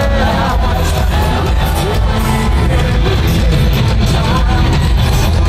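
Loud entrance music over the arena's sound system, with the crowd yelling along.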